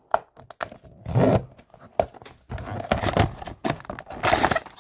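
Blind-box packaging being torn and opened by hand: irregular tearing, crinkling and rustling with small clicks and knocks.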